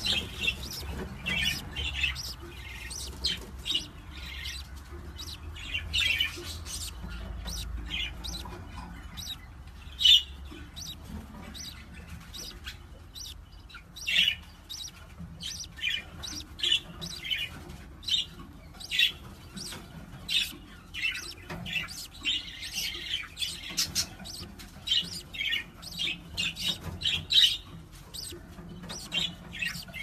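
Budgerigars chirping in a nest box: many short, irregular chirps, repeated throughout.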